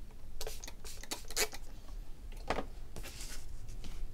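Light clicks and taps of craft tools and a clear acrylic block being handled on a tabletop, a handful of separate knocks, with a brief soft hiss about three seconds in.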